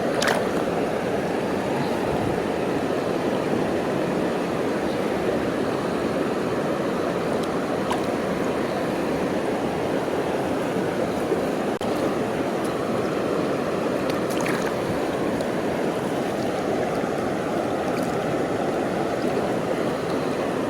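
Steady rushing of a mountain valley stream flowing over rocks, with a few faint clicks.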